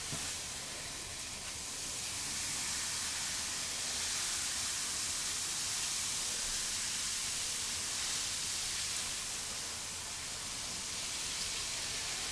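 Hot water poured onto baking soda packed around corroded car battery terminals, making a steady hiss as the soda fizzes and neutralises the acid corrosion.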